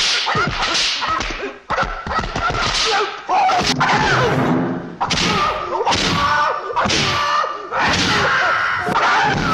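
Kung-fu film fight sound effects: a rapid series of whooshing strikes and slapping punch-and-kick impacts, roughly one a second, with a man's high-pitched wavering martial-arts yells between the hits.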